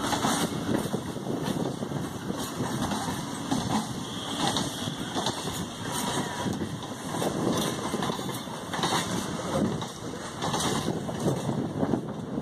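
Electric multiple unit suburban train rolling past at low speed: a steady rumble of the coaches with irregular knocks and clatter from the steel wheels over rail joints.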